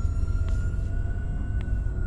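Suspenseful background music: a steady low rumbling drone with a few thin high tones held over it.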